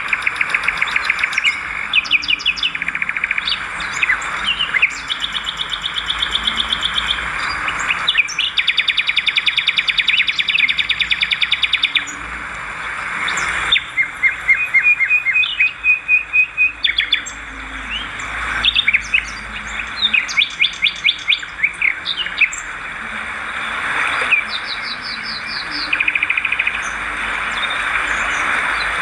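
Swiftlets twittering: many overlapping rapid chirps and buzzy trills over a steady hiss, without a break.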